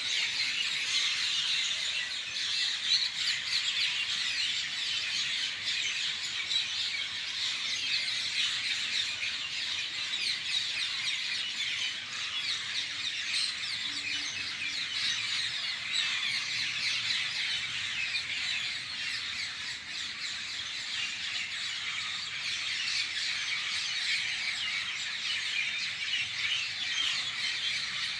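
A dense chorus of many birds calling at once, countless short chirps and calls overlapping in a continuous chatter.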